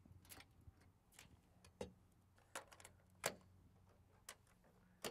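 Faint, scattered clicks and knocks, about half a dozen in all, as a camp stove is stowed and an overland trailer's galley drawers and panel are slid shut.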